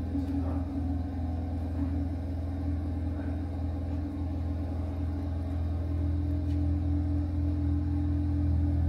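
Background music: a sustained low droning chord with no clear beat.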